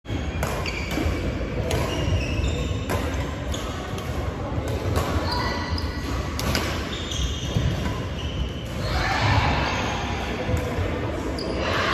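Badminton rackets striking a shuttlecock in a quick drive-and-push rally, sharp hits coming every second or so, with sneakers squeaking on the wooden court floor between them, echoing in a large gym hall.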